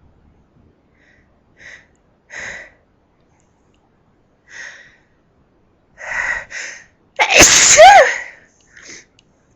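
A person's sneeze build-up: a series of short, sharp in-breaths that grow louder, then one loud sneeze a little after seven seconds in, followed by a short breath.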